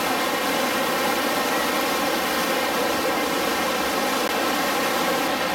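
Steady drone of a tour boat's engine under way, heard from on board, with an even rushing noise of wind and water.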